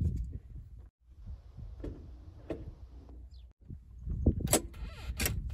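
Flap bar between the seats of a Pelican 500BR being worked by hand through its detents, giving several sharp clicks, the loudest near the end, over a low rumble.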